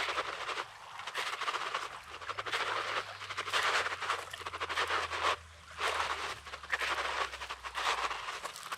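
Small sea waves washing in and out over a rocky, pebbly shore: a hissing wash that swells and fades, with a brief lull about five and a half seconds in.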